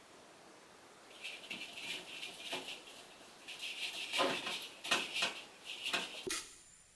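Hands rubbing and scrubbing over a basin at a kitchen sink: intermittent scratchy rustling with a few light knocks.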